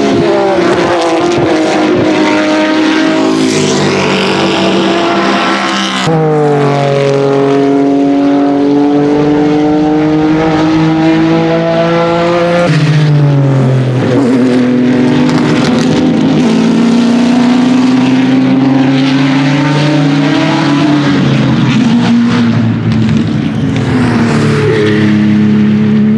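Racing car engines at high revs on track, the engine note rising and falling through gear changes. It opens with a Porsche 996 GT3 RSR's flat-six. The sound jumps abruptly twice to another passing car, one of them an open prototype race car.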